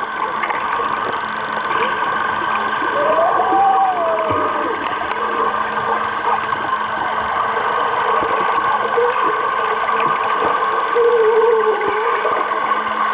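Swimming pool heard underwater with the microphone below the surface: a steady muffled hiss and hum with bubbling. Two brief muffled voice-like sounds come through the water, about three seconds in and again near eleven seconds.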